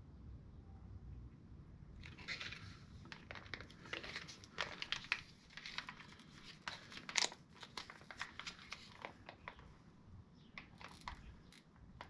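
Plastic oil bottle crackling and crinkling as it is squeezed, squirting oil into a motorcycle's primary case through the derby-cover fill hole. The irregular crackles start about two seconds in and die away near the end.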